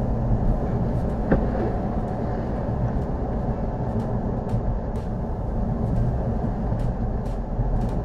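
Steady road noise of a car driving at about 70 km/h on a snow-covered highway, heard from inside the cabin: tyres on packed snow and slush over a low drone.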